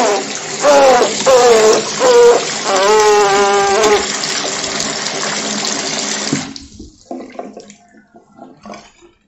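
Bathroom sink faucet running hard, water splashing into the basin, then turned off abruptly about six and a half seconds in; a few faint knocks follow.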